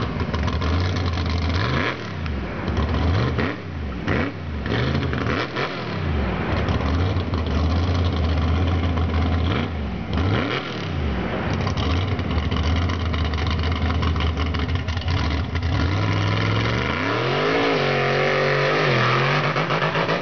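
Monster truck engine revving in repeated blips, then pulling hard with a rising, wavering pitch from about sixteen seconds in as the truck drives into the mud pit.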